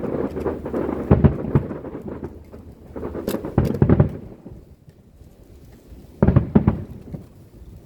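Aerial fireworks shells bursting in a series of deep booms, each rolling on briefly like thunder. The booms come in clusters near the start, about a second in, about three and a half seconds in and about six and a half seconds in, with a quieter lull between them.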